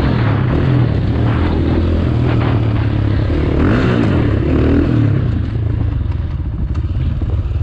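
Supermoto motorcycle engine running hard, revs rising and falling repeatedly, then easing off to a quieter, lower run for the last couple of seconds.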